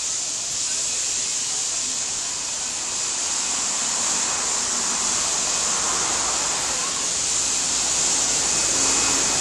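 Steady high hiss of steam from a steam locomotive standing ready to leave, swelling slightly near the end.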